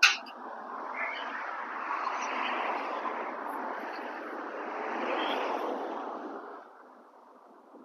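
A sharp click, then a vehicle passing close by: a rushing noise that swells twice and fades away about six and a half seconds in.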